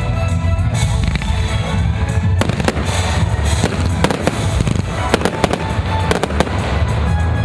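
Consumer fireworks going off over background music: a quick run of sharp bangs and crackles from about two and a half to six and a half seconds in.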